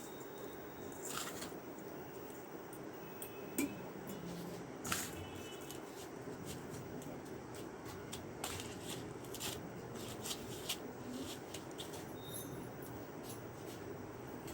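Soft rustling and crunching of dry breadcrumbs as fish cutlets are pressed and turned in them by hand, with a few light clicks from the dish or bowl.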